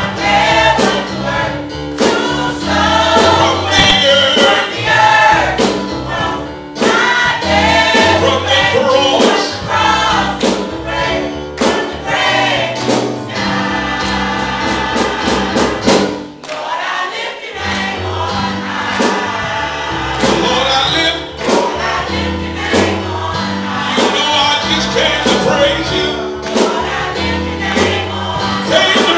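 Youth gospel choir singing with keyboard accompaniment and a steady beat. The music drops out briefly about two-thirds of the way through.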